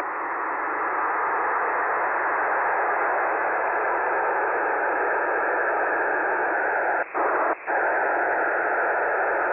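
Shortwave static through a web SDR receiver in upper-sideband mode on 5473 kHz: an even hiss cut off above and below like a voice channel, on an open channel with nobody transmitting. A faint steady tone comes in partway through, and the hiss cuts out twice briefly about seven seconds in.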